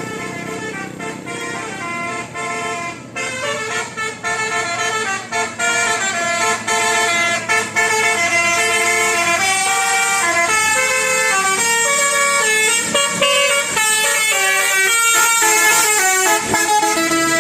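Bus's Basuri telolet multi-tone air horn playing a melody of short stepped notes, several tones sounding together at once. It grows louder about halfway through.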